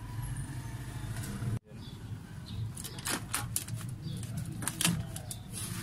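A steady low hum that cuts off abruptly about a second and a half in. Then the clear plastic vapor barrier inside a car door crinkles and rustles, with small clicks, as hands work among the door lock rods.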